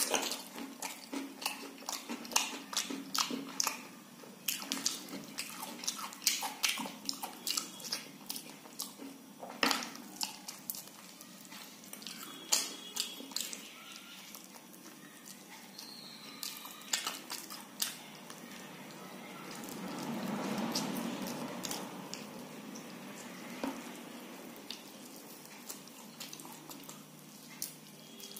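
Close-up mouth sounds of a person eating khichdi and fried fish by hand: wet chewing and lip-smacking, many short sharp clicks, denser in the first half, with a louder stretch of about two seconds past the middle.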